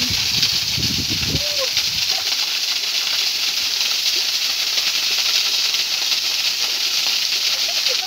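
Small waterfall pouring onto a flat rock and pool, a steady rushing hiss of falling water. A low rumble sits under it for the first two seconds.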